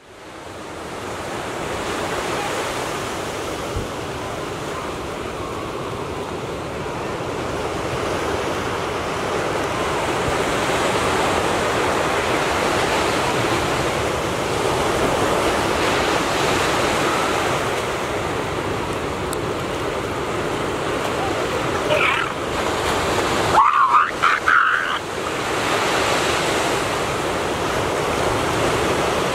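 Water washing and surging against a rocky shoreline as elephant seals move through the shallows, a steady rushing that fades in at the start. About 22 to 25 seconds in, a short, louder, wavering call cuts through.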